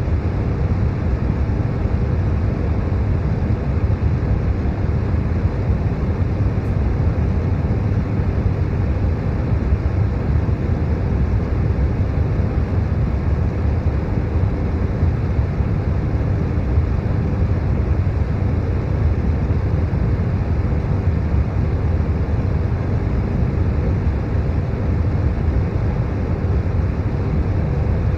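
Steady, deep brown noise with an electric fan's hum blended in. There are no changes or events, only an even rumble that is heaviest in the low end.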